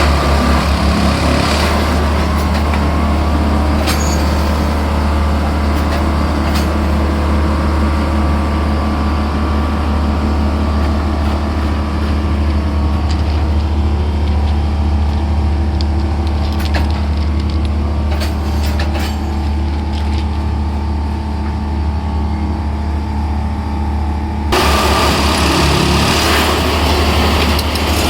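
Diesel engine of a Plasser & Theurer track maintenance machine running steadily with a deep constant hum, with a few short clanks. About 24 seconds in the sound changes abruptly, becoming louder and hissier.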